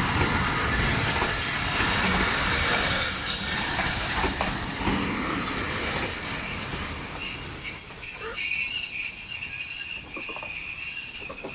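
A passenger train's carriages rolling along the track, with a dense rumble that eases off about halfway through. A steady high-pitched whine stays on over the quieter second half.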